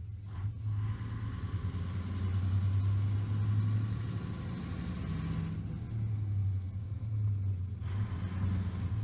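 Steady low engine rumble, with a hiss laid over it from about half a second in to about five and a half seconds, and again near the end.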